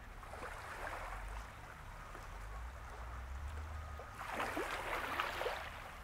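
Small waves lapping and splashing at the water's edge, twice, each lasting about a second, the second louder, over a low steady rumble.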